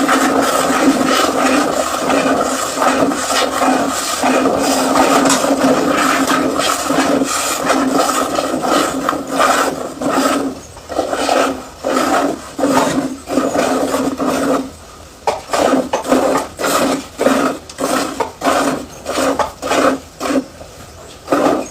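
Milk streams squirting from a cow's teats into a pail, at first in a near-continuous hiss, then from about halfway through as separate rhythmic squirts, roughly two a second.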